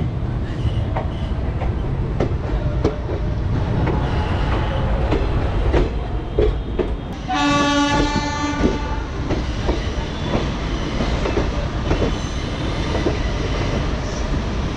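Passenger coach of an Indian electric-hauled express running over track, heard at an open window: a steady rumble with scattered clicks of the wheels over rail joints and points. About seven seconds in, a train horn sounds once for over a second.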